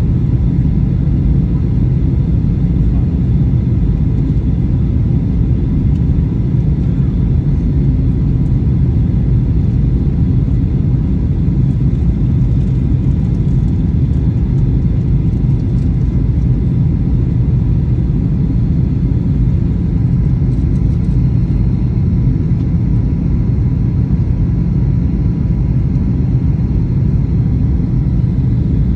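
Steady low rumble of engine and airflow noise inside the cabin of a Boeing 737-900 on its approach, with faint steady tones above the rumble.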